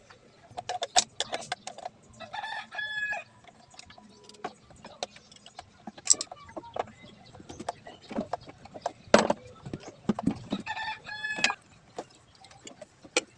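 A rooster crowing twice, once about two seconds in and again near the end, each crow about a second long. Scattered sharp clicks and knocks sound between the crows, the loudest about nine seconds in.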